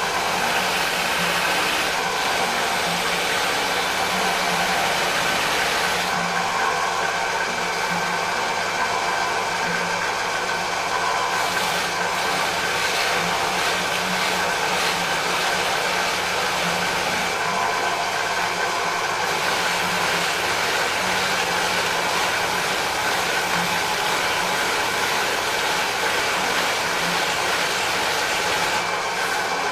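Bench drill press running steadily with an abrasive wheel in its chuck, rubbing against a 2 mm brass motif mounted on a wooden board to polish it. Over a steady motor whine, the scuffing hiss of wheel on metal rises and falls several times.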